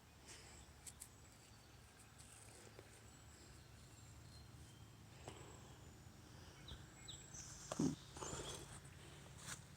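Quiet outdoor ambience with a faint steady background and a few short, faint high chirps, broken by one brief louder sound about eight seconds in.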